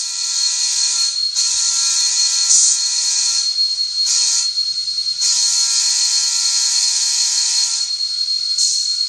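Sound-equipped N scale EMD GP30 model locomotive's decoder sounds through its tiny speaker: a diesel horn blown in a long, long, short, long pattern, with another blast starting near the end, over a steady high whine.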